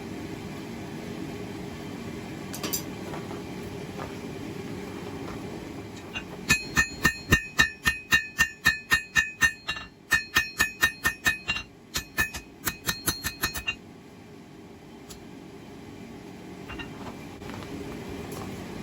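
Hand hammer striking hot steel on an anvil: about two dozen quick ringing blows, roughly four a second, in three runs with short pauses, while the knife blade is being forged to shape. A steady low hum runs under it before and after the hammering.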